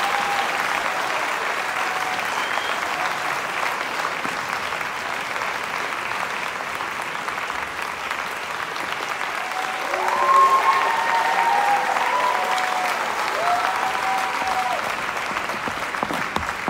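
Audience applauding steadily after a ballet performance, with a few high cheering voices breaking through about ten seconds in.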